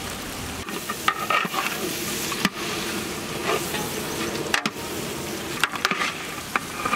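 A long metal ladle stirring chopped coriander and mint leaves into thick mutton masala in a large metal cooking pot. The masala sizzles steadily, and the ladle clicks and scrapes against the pot several times.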